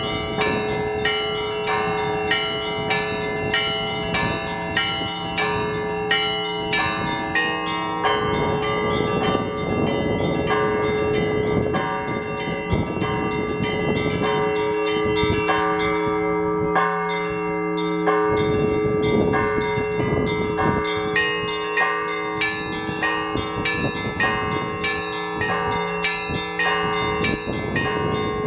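Russian Orthodox church bells in a continuous peal: quick strikes of the small bells in a repeating pattern over the steady hum of the larger bells. Gusts of wind rumble on the microphone at times.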